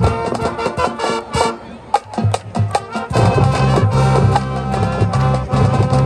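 High school marching band playing, brass over a drumline. About a second and a half in the full band drops back to a sparser, drum-led passage, and the low brass comes back in full about three seconds in.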